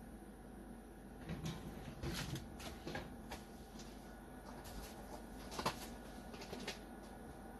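Scattered light clicks, taps and rustles of hands handling electrical cords and small tools, in two short flurries, over a faint steady low hum.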